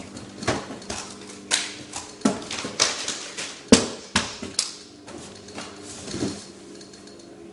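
About a dozen irregular sharp knocks and slaps from a person striking himself and moving about, the loudest a little past the middle, then a duller thump near the end as he drops to the carpeted floor.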